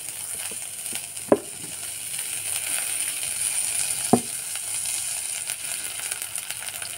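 Sliced onions sizzling in a hot metal kadhai as cooking oil is poured over them. The sizzle swells a little through the middle, and there are two sharp knocks, about one second in and about four seconds in.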